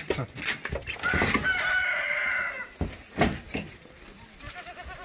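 A rooster crows once, a long call of nearly two seconds starting about a second in, with a few sharp knocks around it.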